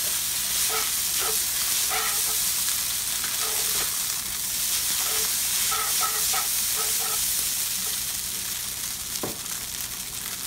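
Rice vermicelli noodles sizzling in oil in a nonstick pan while being stirred and tossed with chopsticks: a steady sizzle with light stirring noises, and a single knock near the end.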